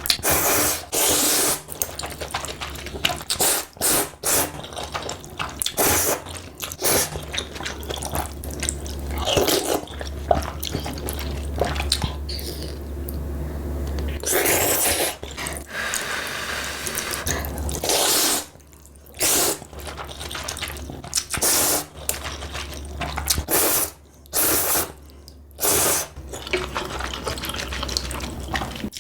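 Close-up wet eating sounds: spicy ramen noodles being slurped, with repeated short wet smacks and chewing and several longer slurps.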